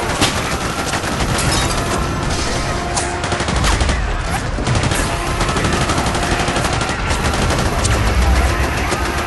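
War sound effect of a city battle: continuous gunfire with overlapping shots and bursts of automatic fire. Deep low rumbles swell about four seconds in and again near eight seconds.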